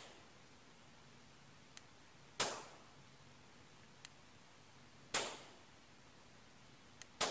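Glock 19 9mm pistol firing three single shots about two and a half seconds apart, the last near the end, each with a short echoing tail. Faint ticks come between the shots.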